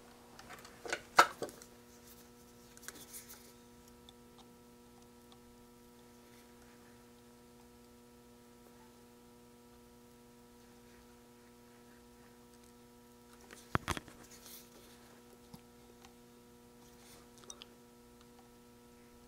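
A steady electrical hum with a few sharp clicks from small parts being handled on a workbench. The loudest click comes about a second in, and a short cluster of clicks follows later.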